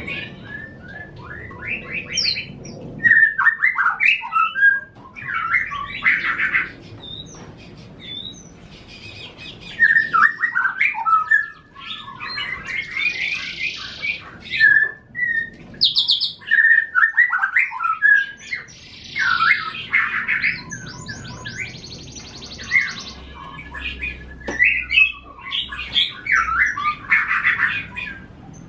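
Caged songbirds singing: loud, varied phrases and fast high trills in bursts of a second or two, with short pauses between them.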